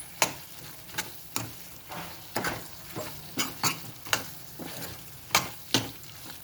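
A spoon stirring green masala paste and vegetables frying in oil in a pan: irregular scrapes and clinks against the pan, about two a second, over a steady sizzle.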